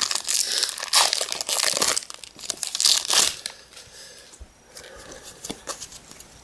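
Foil wrapper of a Pokémon EX Emerald booster pack crinkling and tearing as it is handled and opened, in a run of loud rustling bursts over the first three seconds or so. After that, quieter light rustles and clicks of cards being handled.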